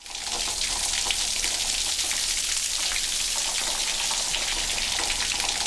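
Rain pattering on a hard surface: a steady hiss dotted with many small drop ticks, fading in quickly at the start.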